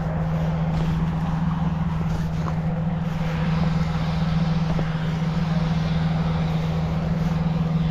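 Gas-engine inflator fan running at a steady speed, a constant low engine hum with rushing air as it blows cold air into the balloon envelope.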